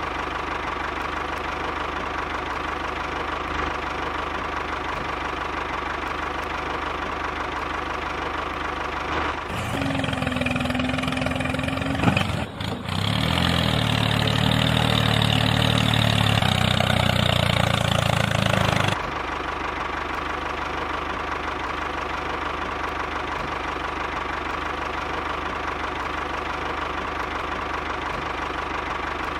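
Miniature toy tractor's motor running steadily with a constant thin whine, turning louder and deeper from about ten to nineteen seconds in.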